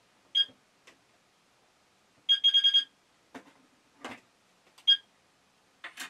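C-TEC CFP fire alarm control panel's internal buzzer beeping as its buttons are keyed to reset it after a battery change: a short high beep, a quick run of about five beeps, then another single beep, with soft button clicks in between.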